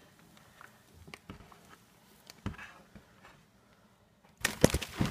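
Faint scattered rustles and taps, then near the end a sudden clatter of sharp knocks as a plastic snake tub slides out of its rack and falls.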